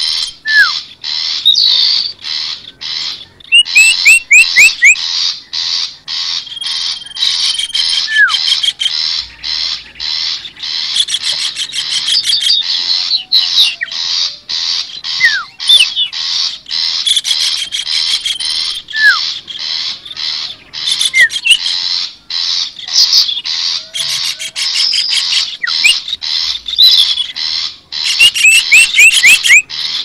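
Bird-trapping lure recording of small songbirds' noisy alarm and distress calls: dense, rapid, harsh chattering from several birds at once, with occasional short whistled notes and high thin trills.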